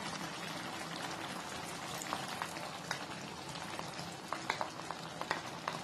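Teriyaki sauce simmering in a wok: a steady bubbling hiss with scattered small pops and clicks, while tapioca starch slurry is poured in to thicken it.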